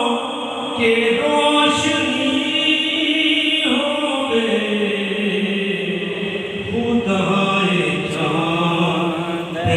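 Devotional Punjabi singing: long held, gliding vocal lines over musical backing, with no clear words.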